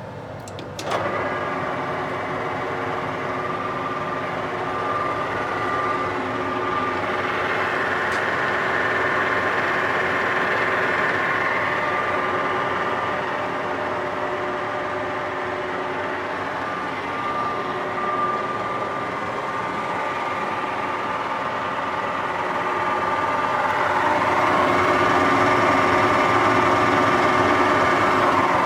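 Colchester Triumph 2000 centre lathe running under power, its geared headstock giving a steady whine. It starts abruptly about a second in and gets louder near the end.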